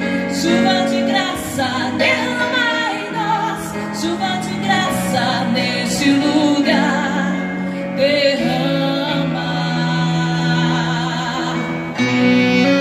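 Gospel worship song: a singer's voice carries a wavering, drawn-out melody over held instrumental accompaniment. Near the end the voice gives way to a fuller instrumental passage.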